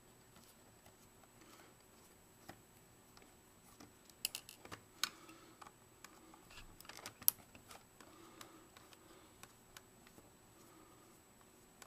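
Small screwdriver working screws out of the plastic body of a Vivitar 2800 flash: faint, scattered clicks and light scraping of the driver tip and the handled flash case, with a quick cluster of clicks about four seconds in and a sharper click about seven seconds in.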